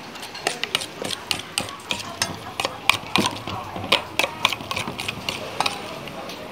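Metal spoon beating egg and pumpkin in a stainless steel bowl, clinking against the bowl in quick, uneven strikes, a few a second.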